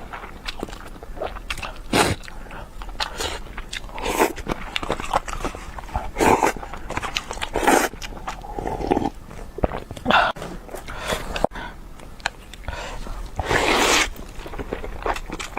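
Close-miked eating sounds: food being bitten and chewed, with irregular loud noisy bursts every second or two.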